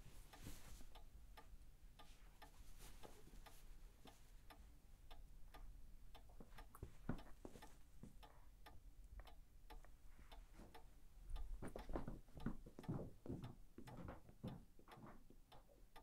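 Clock ticking steadily, about two ticks a second, with a few louder knocks and rustles in the last few seconds.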